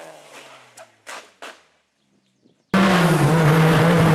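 A rally car's engine fading away, three short knocks, then about a second of near silence before a rally car engine cuts in loud and steady at high revs near the end.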